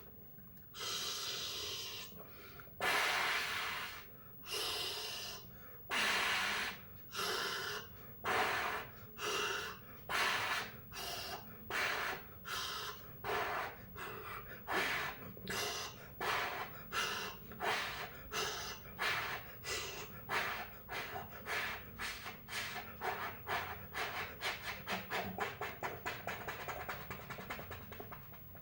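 A person imitating a steam locomotive by mouth: breathy hissing chuffs, slow and widely spaced at first, then speeding up steadily to several a second, as the engine pulls away and gathers speed.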